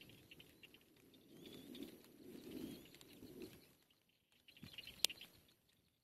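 Faint rustling of nest twigs as a black-winged kite feeds its downy chicks, with a few soft high chirps and one sharp click about five seconds in.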